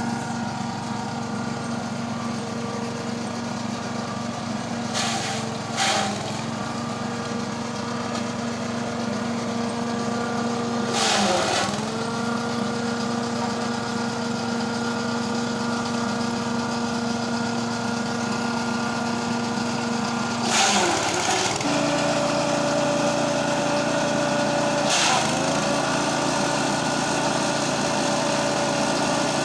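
Vehicle engine running steadily on the road, its note dipping briefly and picking up again about 6, 11 and 21 seconds in, and settling at a different pitch after the last dip.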